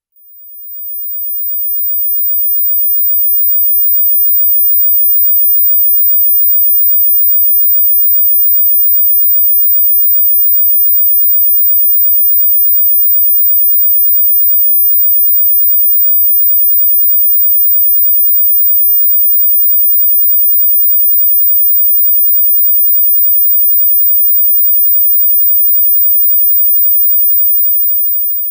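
A 15,000 Hz sine-wave test tone: a single very high, steady pitch that swells up over the first couple of seconds, holds, then stops at the end.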